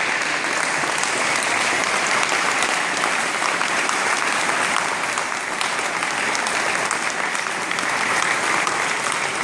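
A large audience applauding steadily, many hands clapping at once, as the talk ends.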